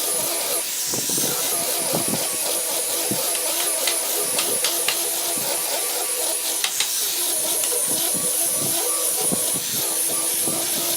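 A small electric motor running steadily with a constant hiss, with scattered sharp clicks through it, as from a handheld power tool working wood.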